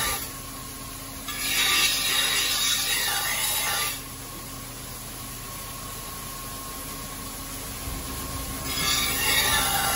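A steel deba knife ground against a large wet rotating grinding wheel: a harsh rasping grind for about two and a half seconds from just over a second in, and again near the end. Between the passes the wheel runs with a quiet steady hum.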